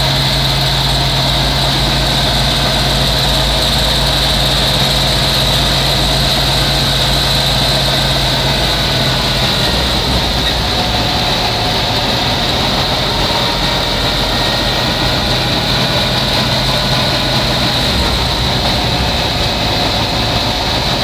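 Stationary wheat threshing machine and its driving engine running steadily, a loud continuous mechanical drone. The low hum changes pitch slightly about halfway through.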